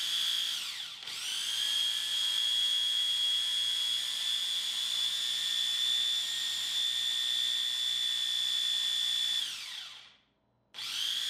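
Small electric food processor motor running in pulses, its blade grinding dried lavender buds: a high steady whine that dips and picks up again about a second in, runs for several seconds, winds down to silence near the end, then starts up again.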